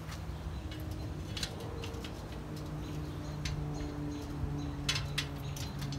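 A few light, scattered metal clicks as a bolt is tightened on the metal swing-grill upright, over a steady low hum.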